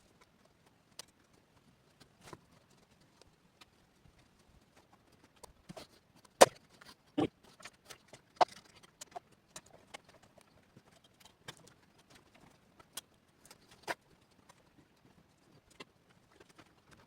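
Irregular small clicks, taps and knocks of small parts and tools being handled on a work surface, with a sharper knock about six seconds in and another near eight seconds.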